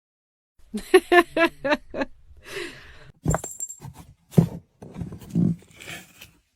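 A cat crying out in a quick run of short pitched cries about a second in, followed by scattered knocks and scuffs.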